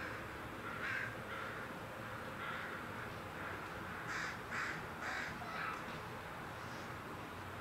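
Crows cawing: a string of short, harsh calls, scattered at first and coming thicker about four to six seconds in, over a steady faint background hiss.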